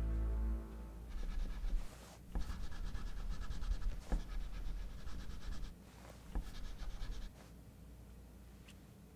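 Crayon scribbling on paper in a run of scratchy strokes that stops about two-thirds of the way through, leaving faint room tone. A music cue fades out at the very start.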